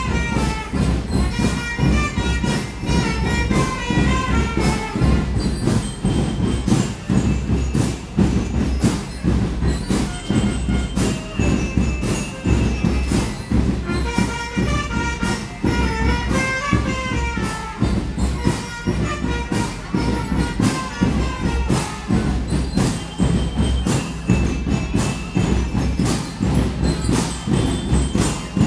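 Marching band playing: trumpets carry the melody over a steady beat of bass drums, snare drums and crashing cymbals.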